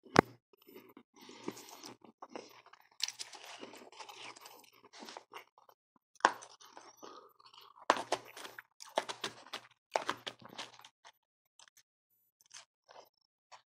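Close-miked chewing and crunching of powdery freezer frost and crushed ice: runs of crisp crunches with short pauses between bites, dying down near the end.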